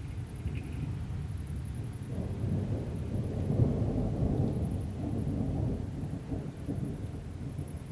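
Rolling thunder from an approaching thunderstorm: a low rumble that swells about two seconds in, peaks around the middle and dies away near the end.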